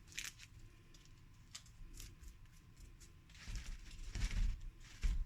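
Water being poured onto freshly potted soil in a plant container: a soft hiss for about a second past the middle, among small clicks of handling, with a brief thump near the end.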